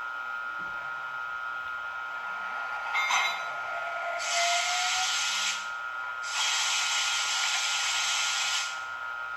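ESU LokSound 4.0 sound decoder in a Piko Vectron model electric locomotive playing locomotive sounds through its small speaker: a steady high whine, a click about three seconds in, then two bursts of hissing air, the second one longer, each starting and stopping abruptly.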